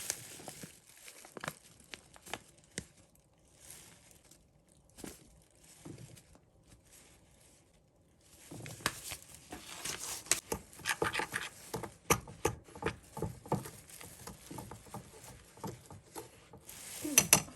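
Kitchen handling noises: scattered taps and clicks with rustling. The noises are sparse at first and get busier and louder about halfway through.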